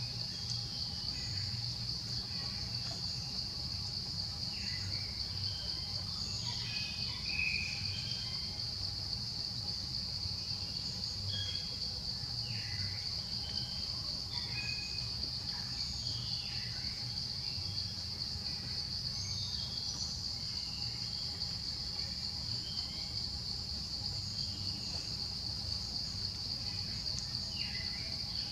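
Steady high-pitched drone of insects in the trees, with scattered short chirps over it and a low rumble underneath.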